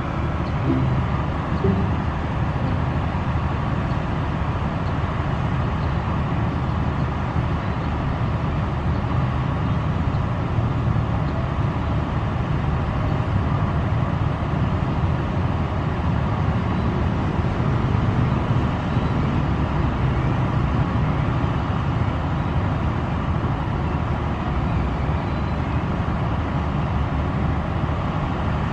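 Steady low diesel rumble with a faint steady hum from a standing passenger train idling.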